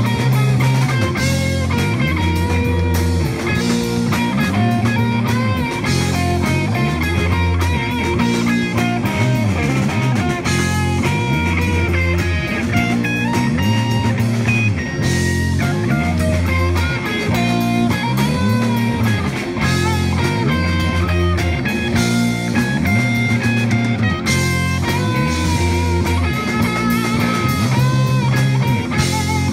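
Live rock band playing a funky instrumental jam: two electric guitars, electric bass and drum kit. A bass line repeats under lead guitar notes that bend up and down in pitch.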